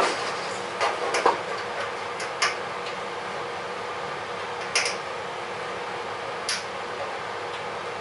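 Light metallic clicks and taps from handling parts against an aluminium aircraft skin, a handful spread unevenly over several seconds, clustered in the first second and a half, with single ones later. A steady hiss with a faint hum runs underneath. No rivet gun is firing.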